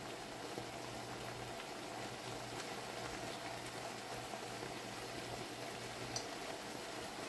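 Chicken and leafy greens simmering in the liquid the vegetables have released in a nonstick wok, giving a steady bubbling sizzle. Under it runs a low hum that cuts out briefly after about a second and a half and stops about six seconds in.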